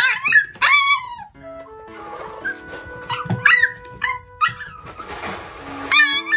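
Micro teacup toy poodle puppy screaming and yelping in shrill, high-pitched cries to demand its food. The cries come in bursts: several at the start, then more around three and a half, four and a half and six seconds in. Light background music with held notes comes in about a second and a half in.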